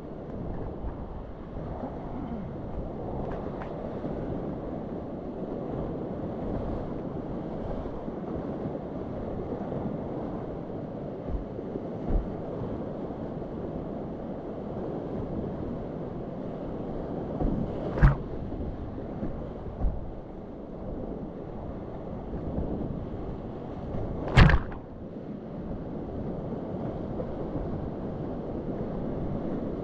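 Steady rushing of a glacier-fed river in flood, whitewater churning around a kayak as it is paddled through continuous rapids. Two sharp knocks cut through the rush, one a little past halfway and a louder one about six seconds later.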